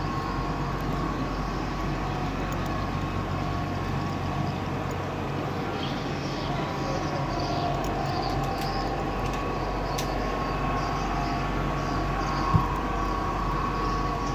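Steady low mechanical hum of running machinery, with a single sharp knock about twelve seconds in.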